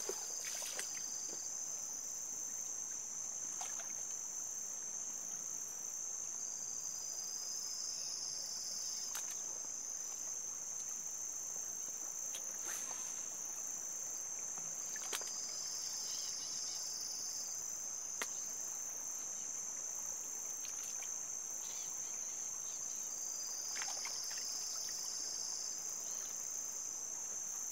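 Continuous high-pitched drone of insects, with a second insect chirring in phrases a little lower in pitch that come and go about every seven seconds. A few sharp clicks are heard here and there.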